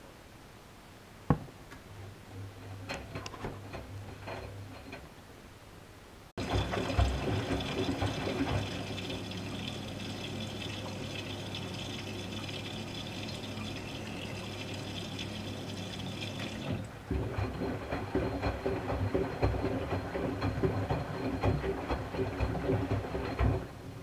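Miele W 435 front-loading washing machine taking in water, with foamy water in the drum: a sudden loud rush of water filling the machine. About two-thirds through, it gives way to sloshing and low thumps from the turning drum, which stop just before the end. A few light clicks and a low hum come before the rush.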